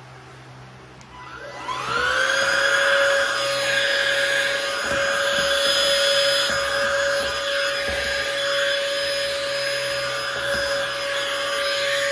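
Cordless handheld vacuum cleaner starting up with a rising whine, running steadily while it sucks up drilling debris from around the track, then starting to wind down at the very end.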